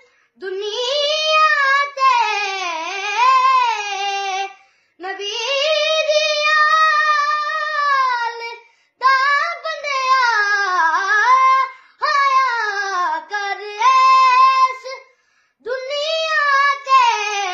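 A boy singing a Punjabi naat solo and unaccompanied, in five long, ornamented phrases whose pitch bends up and down, with short pauses between them.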